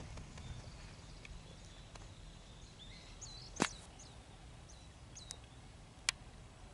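Quiet outdoor ambience with a steady low rumble and a few short, high bird chirps. Two sharp clicks, about three and a half and six seconds in; the first is the loudest sound.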